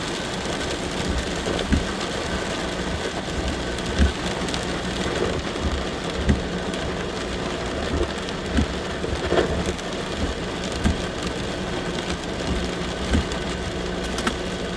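Heavy thunderstorm rain pounding on a vehicle's roof and windshield, a dense steady patter with scattered sharper hits, over the low steady hum of the vehicle's engine.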